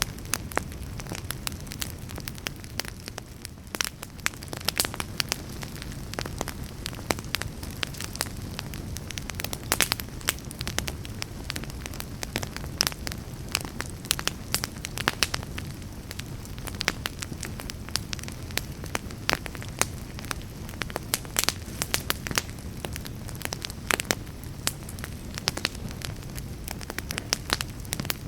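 Fire crackling in a fireplace: frequent irregular sharp pops and snaps over a steady low rumble of the flames.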